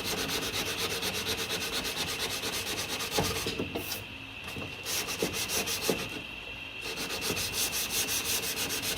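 Dry hand sanding of body filler on a car door sill with 240-grit abrasive: quick, even back-and-forth rasping strokes, about five a second, pausing briefly twice around four and six seconds in. This is the stage of flatting the filler until the guide coat and scratches are gone.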